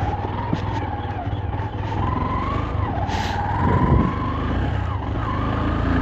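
Motorcycle engine running under way on a dirt road, its whine rising and falling with the throttle over a steady low rumble.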